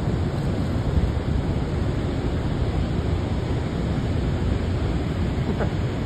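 Steady, deep rush of turbulent water from the Rhine Falls and the churning river around the boat, with wind buffeting the microphone.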